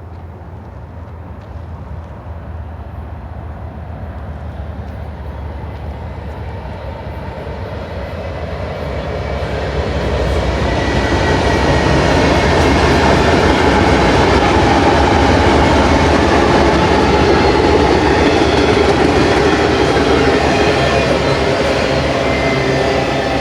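Diesel locomotives of a BNSF intermodal freight train approaching: an ES44DC leading with ES44C4 and ET44C4 units, all GE GEVO V12 engines. Engine drone and rolling rail noise grow louder over about ten seconds, then stay loud as the train passes.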